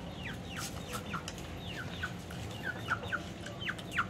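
Chickens calling nearby: a run of short, high, falling cheeps, a few a second, over a low steady background hum.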